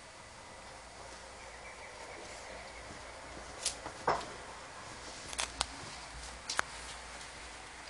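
A dog nudging a fleece blanket over a bone with its nose: a few short, soft rustles and scuffs of fabric over a faint steady hiss, the sharpest one about four seconds in.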